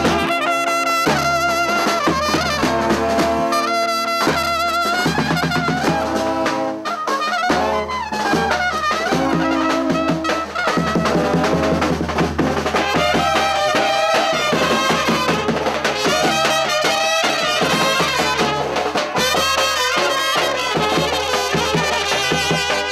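Brass band playing live: trumpets and other horns carrying a wavering, ornamented melody over a bass drum beat.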